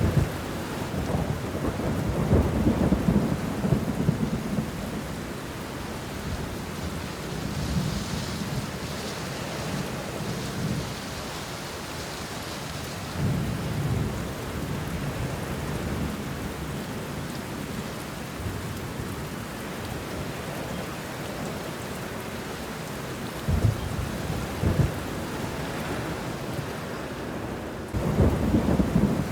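Steady heavy rain falling on banana leaves and bushes, with thunder rumbling several times, loudest near the start and the end.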